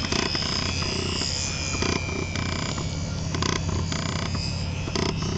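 HobbyZone Super Cub RC plane's electric motor whining steadily in flight, its pitch drifting slightly with throttle, over a steady low hum and rumbling noise on the microphone.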